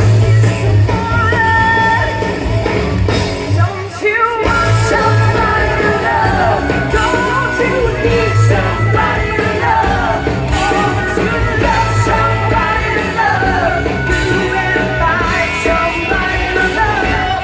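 Live amplified rock band playing with a singer over a steady bass beat; the music drops briefly about four seconds in, then carries on.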